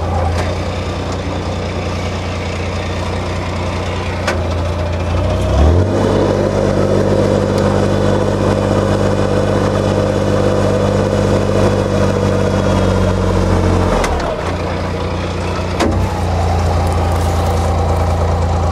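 Narrowboat's diesel engine running steadily under way, a low hum whose tone shifts abruptly about six seconds in and again near fourteen and sixteen seconds.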